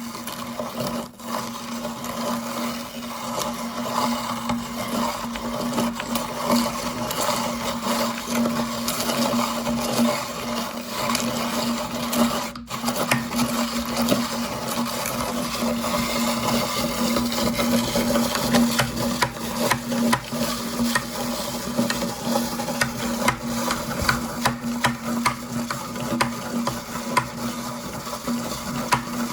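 Electric meat grinder running with a steady motor hum while it grinds hard candy, with dense crackling and crunching from the candy being crushed.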